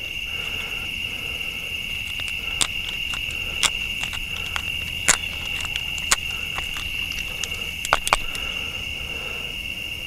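A steady high insect trill, with scattered sharp clicks and creaks as a pocket-knife awl is twisted back and forth to bore a hole through a wooden stick.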